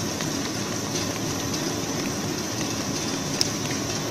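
Steady mechanical running noise of a twin-screw extruder snack puffing line, with a high hiss, light ticking and one sharp click about three and a half seconds in.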